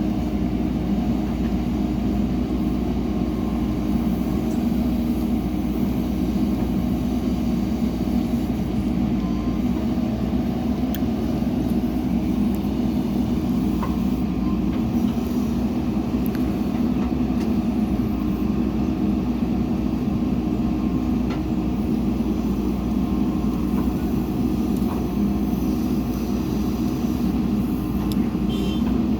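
Diesel engine of heavy earthmoving equipment running steadily, with an even low drone and a few faint knocks.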